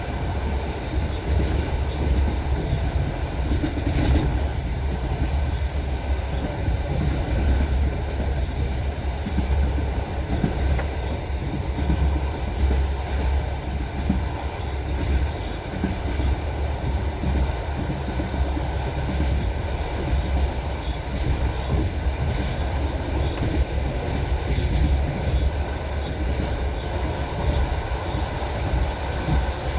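Railway carriage wheels clattering over the rail joints as the train runs at speed, over a steady low rumble.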